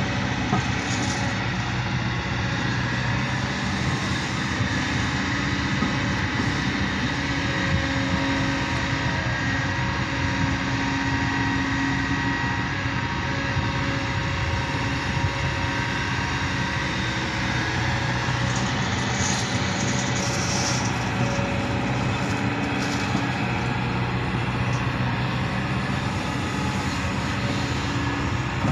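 Kobelco crawler excavator's diesel engine running steadily under hydraulic load while it digs soil and swings it over to tipper trucks.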